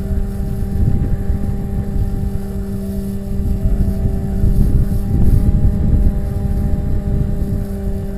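Electric motor and propeller of a Bixler RC glider running at a steady pitch, picked up by a camera on the airframe, with heavy wind rumble over the microphone.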